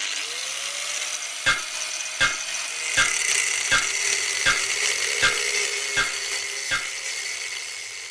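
A power tool working wood, a steady hiss, with an even knock about every three-quarters of a second. It fades out near the end.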